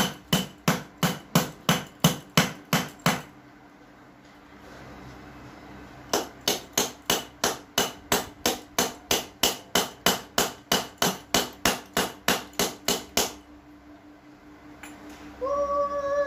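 A USB Type-C charger being smashed with quick, repeated blows, about three a second. One run of strikes stops about three seconds in, and after a pause a longer run of about two dozen strikes follows.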